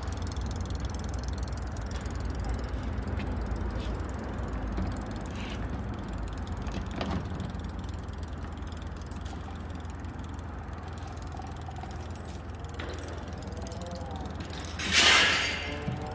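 Steady low hum with a few faint clicks of work, and a loud burst of hiss about a second long near the end.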